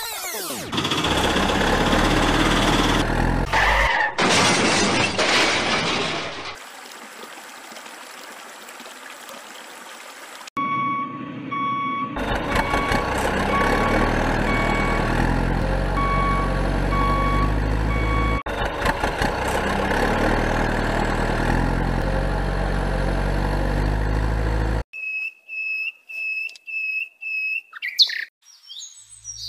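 Added vehicle sound effects: an engine running with a steady low rumble, with a repeating electronic beep over it for several seconds. Near the end a string of short, high chirps takes over.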